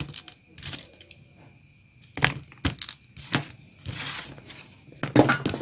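Leather collar strips being handled and pressed flat on a work board: a string of short knocks, crinkles and rubs as the pieces are lined up, with one longer rub about four seconds in.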